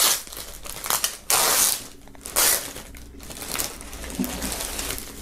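Clear plastic poly bag crinkling and rustling as a folded T-shirt is pulled out of it, in several loud bursts about a second apart with quieter rustling between.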